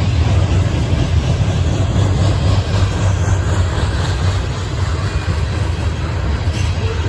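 Loaded coal hopper cars of a freight train rolling past with a steady low rumble of wheels on rail.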